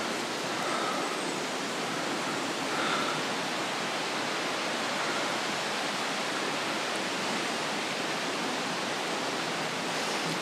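Water running at a fountain: a steady, even rushing with no change in level.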